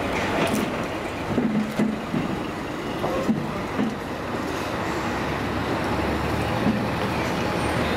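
Heavy lorry pulling a large box semi-trailer away slowly, its diesel engine running low and growing a little louder in the second half. The trailer knocks and rattles a few times in the first few seconds.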